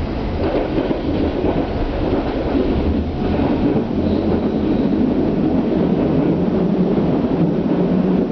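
Berlin S-Bahn electric train running, a steady rumble of wheels on track and traction noise heard from inside the carriage, growing slightly louder after a couple of seconds.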